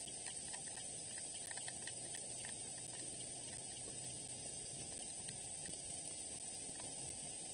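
Steady hiss of rain falling on the leaves around the nest.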